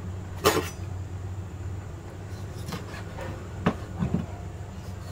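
A kitchen knife knocking against a cutting board while a squid tube is sliced into rings: one sharp knock about half a second in, then a few lighter knocks near the end, over a steady low hum.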